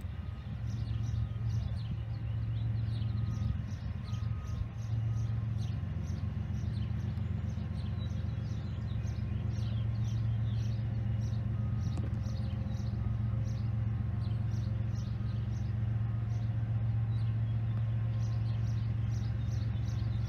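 A steady low engine hum, growing slightly louder towards the end, with a bird chirping over and over above it.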